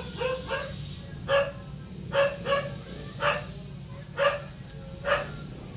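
A dog barking: about eight short barks spaced roughly a second apart, some coming in quick pairs.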